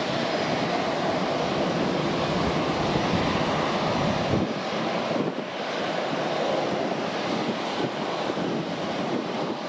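A steady rushing noise from the CFM56 jet engines of a taxiing Airbus A321 at low taxi power, mixed with wind on the microphone.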